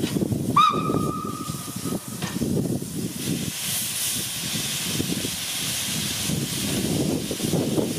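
Small steam tank locomotive sounds one steady whistle blast of about a second and a half just after the start, then moves off with steam hissing from low at its front, the hiss growing from about three seconds in.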